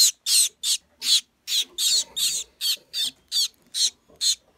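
Gouldian finch nestlings begging: a quick, even run of short, high chirps, about three a second.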